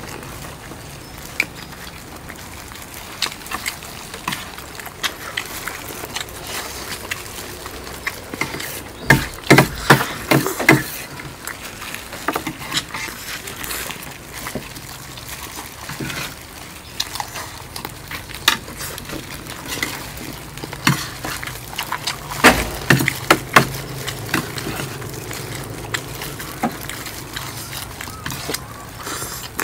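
Spoons clicking and scraping on plates of rice and chicken wings during fast eating, in irregular clicks with two busier, louder flurries, one about a third of the way in and one past the middle.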